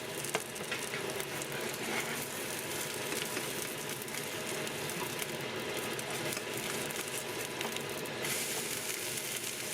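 Food sizzling steadily as it fries in a pan, with a brighter, hissier edge about eight seconds in.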